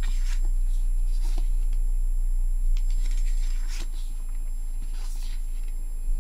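Pages of a photobook turned by hand: about four short, soft paper rustles, the clearest near the middle. Under them a steady low hum and a faint high whine.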